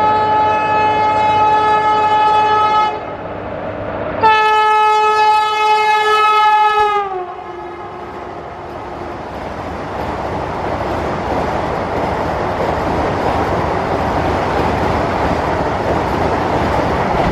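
Vande Bharat Express (Train 18) semi-high-speed trainset sounding its horn in two long blasts about a second apart, the second sliding down in pitch at its end. The train then runs past at speed with a steady rushing and rumbling of wheels on rails.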